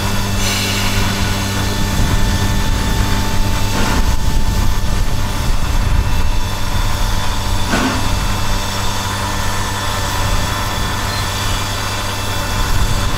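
A steady mechanical hum like an engine running, with a single knock about four seconds in and another near eight seconds.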